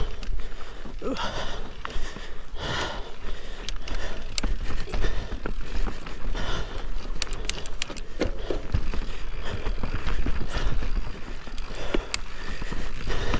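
Mountain bike riding over rough trail: tyres rattling over stones and roots, with sharp clicks and knocks from the bike throughout and a quick cluster of them about seven seconds in. Wind rumbles on the action camera's microphone.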